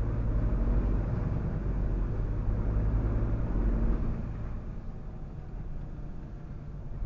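Truck's diesel engine running at low speed, heard from inside the cab as a steady low drone that eases off a little about four seconds in.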